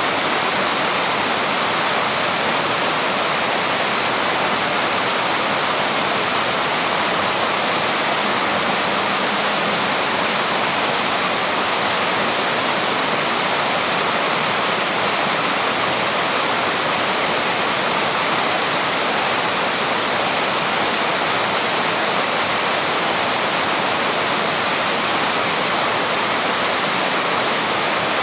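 Small waterfall rushing steadily, an even, unbroken roar of falling water.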